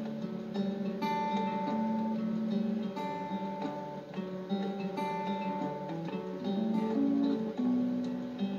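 Background music: an acoustic guitar strumming and picking a tune whose phrase comes round about every two seconds, heard through a television's speaker.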